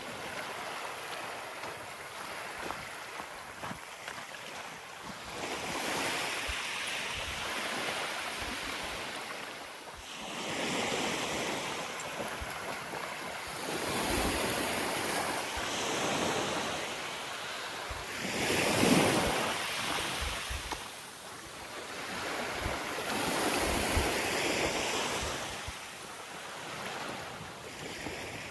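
Sea waves washing up the beach in surges every four to five seconds, each swelling and fading, the loudest one a little past the middle. Wind rumbles on the microphone underneath.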